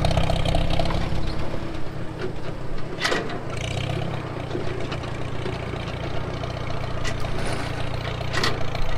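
Engine of the machine pulling a non-running Farmall H tractor, running steadily; it dips briefly about three seconds in. Two sharp knocks, one about three seconds in and one near the end.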